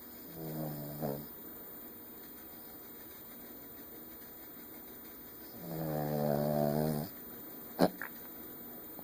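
Dog snoring: a short snore about half a second in, then a longer, louder snore about six seconds in, each a low-pitched buzzing drone. Shortly after the second snore comes a sharp click, the loudest sound, followed by a fainter one.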